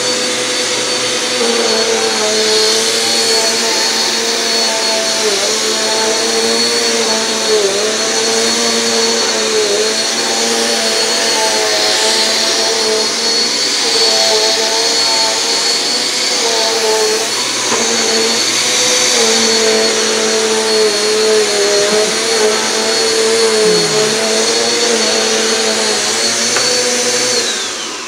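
Bissell upright bagless vacuum cleaner running loudly and steadily, a motor drone with a high whine, its pitch dipping briefly now and then as it is pushed across a rug. Near the end it is switched off and the whine falls away as the motor spins down.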